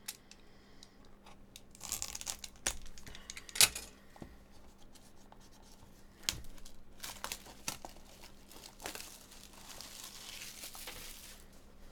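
Packaging on a trading-card box being torn and crinkled open by hand, with rustling stretches and several sharp clicks, the loudest a few seconds in.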